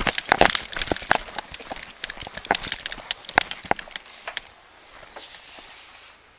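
Hurried footsteps with metallic jingling and rattling of kit and dog-lead fittings, a quick run of sharp clicks that dies down after about four seconds.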